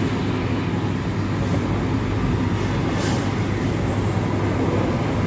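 Steady low background rumble with no speech, and a faint brief rustle about three seconds in.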